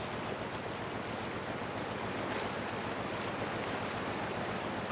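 Steady rushing noise with a low hum beneath it, unchanging throughout.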